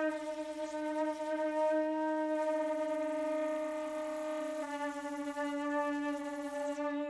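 Concert flute holding long, low sustained notes, the tone stepping down to a slightly lower pitch about two-thirds of the way through, with a brief wavering in the sound around the middle.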